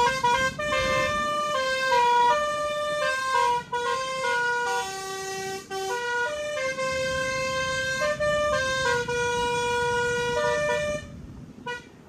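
Bus's Basuri telolet air-horn module playing a tune: a melody of held horn notes, often two or three sounding together, that stops about eleven seconds in.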